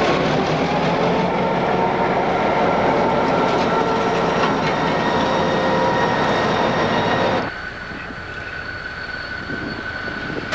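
Diesel locomotives rolling past close by: engines running and steel wheels rolling over the rails. About seven and a half seconds in the sound cuts to a quieter, steady hum with a thin high whine.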